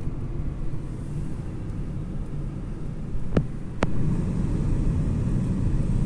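Steady low rumble of a car's engine and tyres heard from inside the cabin of a moving car, a little louder after about four seconds. Two sharp clicks come about half a second apart just past the middle.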